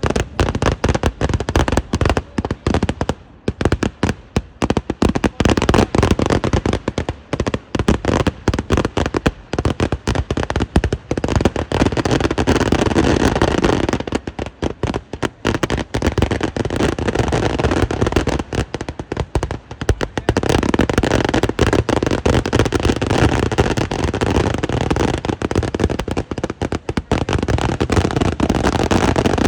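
Eeduvedi fireworks: a dense, continuous barrage of rapid-fire firecracker blasts, the bangs running together with almost no gaps. It is heaviest around the middle and toward the end.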